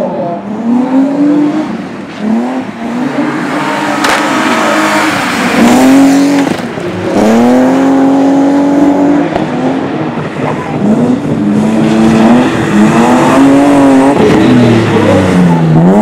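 BMW E36 3 Series saloon's engine revving hard as the car is driven sideways around a dirt track, its note repeatedly climbing and falling with throttle and gear changes. Near the end the pitch drops low and then climbs sharply again.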